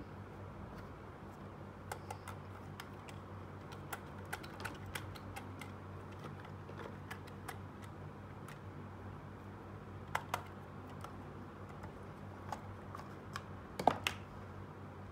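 Small plastic toy pieces handled by hand: scattered light clicks and taps, with a sharper knock near the end, over a steady low electrical hum.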